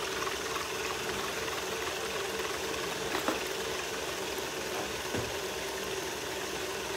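KitchenAid stand mixer running at a steady speed, its wire whip beating heavy whipping cream in the steel bowl. There is a light tap about three seconds in.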